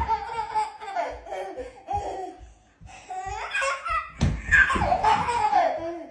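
A baby laughing in repeated high-pitched bursts, with a brief pause about halfway through and a loud burst of laughter after it.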